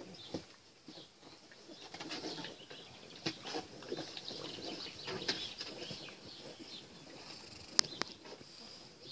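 French bulldog puppies splashing and paddling in shallow water in a small plastic pool, their claws scrabbling and tapping on the plastic rim. Two sharp knocks come close together near the end.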